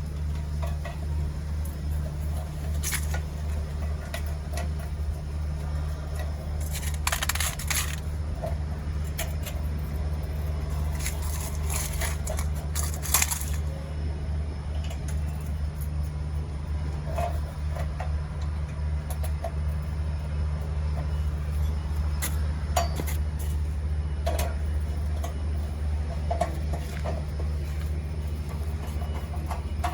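Metal clinks, taps and rattles of spanners, bolts and generator parts being handled and tightened, coming in scattered clusters over a steady low hum.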